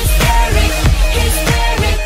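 K-pop electronic dance remix playing, with a fast, steady beat and deep bass hits that drop in pitch.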